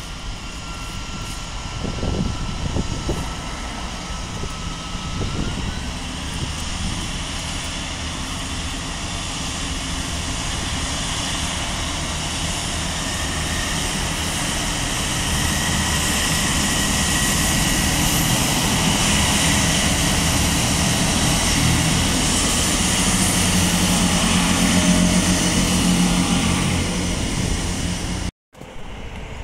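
Diesel multiple unit running into the station and passing beneath. Its underfloor engine rumbles with a thin whine and grows steadily louder as it comes closer, then cuts off suddenly near the end.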